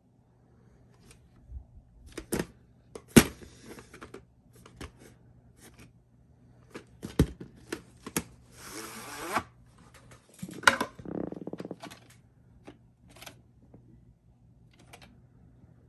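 A VHS tape being handled in the hand: scattered clicks and taps of the plastic cassette and its cardboard sleeve, the sharpest about three seconds in, with a brief sliding scrape about nine seconds in as the cassette is drawn out of the sleeve.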